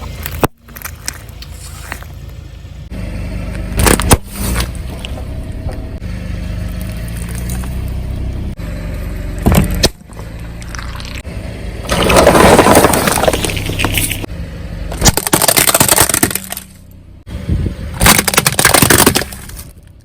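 A car's tyre rolling over objects and crushing them: a low steady rumble under several sharp cracks and breaking crunches, with the longest, loudest bouts of crunching a little past the middle and again near the end.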